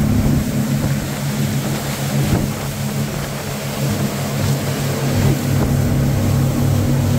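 Twin outboard motors running steadily at cruising speed, a constant engine drone under the hiss of wind and spray from the boat's wake.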